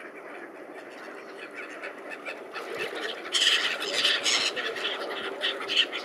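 A crowd of waterfowl and gulls (ducks, swans and gulls) calling on a river. The calls grow busier and louder from about halfway through.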